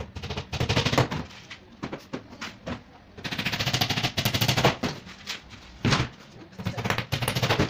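Claw hammer striking nails into a thin fibreboard cabinet panel: irregular sharp knocks, with a fast run of light taps lasting about a second and a half, starting about three seconds in.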